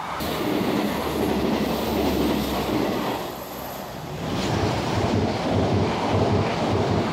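Passenger multiple-unit trains passing close at speed, one after the other: a loud rush of wheels on rail, with a faint high whine for the first three seconds or so. From about halfway, the wheels beat out a rhythmic clickety-clack over the rail joints, about three beats a second.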